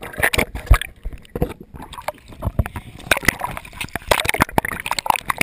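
Water sloshing and splashing around a GoPro in a dive housing as it breaks from underwater to the surface, with irregular knocks and bumps on the housing; the loudest knock comes under a second in.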